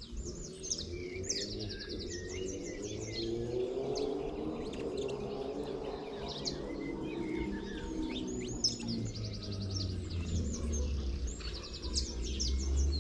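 Several small birds chirping and calling, with rapid trills near the start and again near the end, over a low steady rumble.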